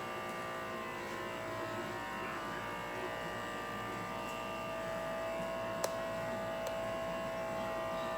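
Portable aquarium air pump buzzing steadily, a drone of many fixed pitches. A sharp click about six seconds in and a fainter one shortly after.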